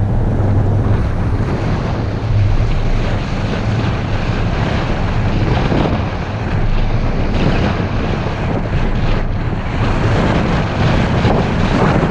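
Car driving along a rough paved road: a steady low drone of engine and tyres, with wind rushing over the microphone.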